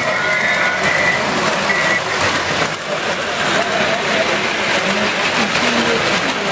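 American Flyer 9900 Burlington Zephyr, an 81-year-old electric toy streamliner on original, oiled equipment, running on three-rail track: a steady running noise of its motor and wheels on the rails.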